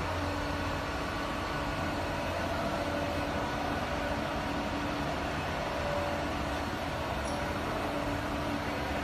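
Large CNC gantry milling machine running: a steady mechanical hum with several faint steady tones, with no change in level.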